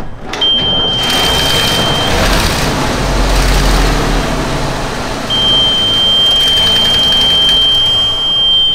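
An old school bus's carbureted engine runs loud and rough. A steady high-pitched warning buzzer sounds for about two seconds, stops, then comes back about five seconds in and holds.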